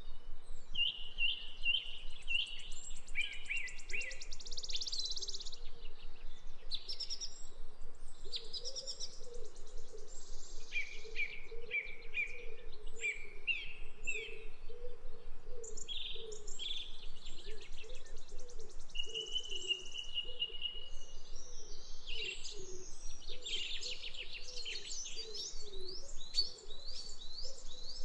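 Several songbirds singing together, a busy mix of chirps, trills and whistles, with a lower call repeated over and over underneath through most of it.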